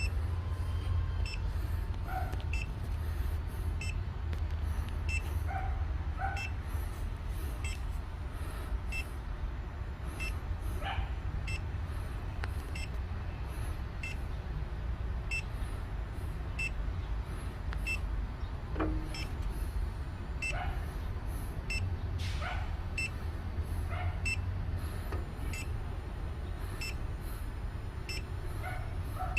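Electronic refrigerant leak detector beeping at a steady rate, about one and a half short high beeps a second, over a steady low hum.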